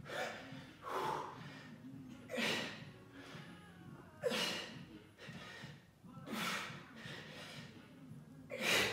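A man breathing hard from exertion during push-ups, with a forceful breath about every one to two seconds, six in all.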